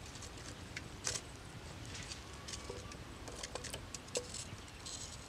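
Wood fire crackling in a clay stove's firebox: scattered sharp pops and snaps over a low steady rumble.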